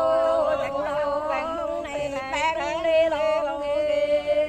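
Singing in a chanting style, with one note held steadily beneath a wavering, ornamented melody.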